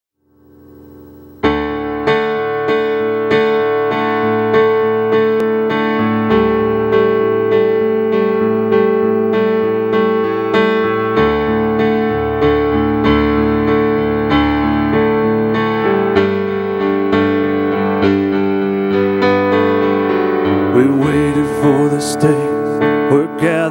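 Digital stage keyboard with a piano sound playing the opening chords of a worship song, struck steadily about twice a second, coming in about a second and a half in after a faint swell.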